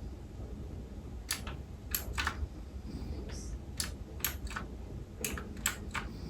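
Mechanical keyboard with clicky blue switches: about ten keystrokes at irregular spacing, each a sharp click.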